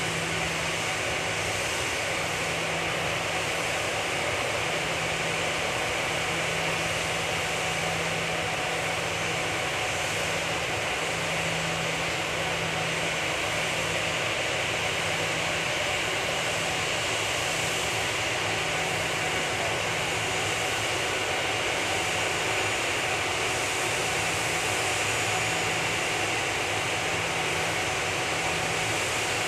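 Steady hiss with a faint whine from ground machinery on an airport apron around a parked Airbus A340, with a low hum that fades in and out every few seconds.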